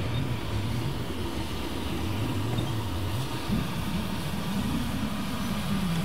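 Ab class steam locomotive standing in steam, giving a steady low hum that slowly wavers up and down in pitch.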